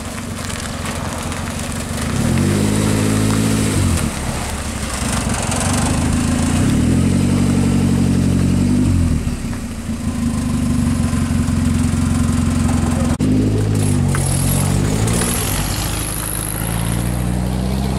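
Morris Minor's four-cylinder engine blipped several times as the car pulls away slowly, each rev rising and then falling back, with the engine running steadily in between and climbing again near the end as it drives off. A single sharp click comes about two-thirds of the way through.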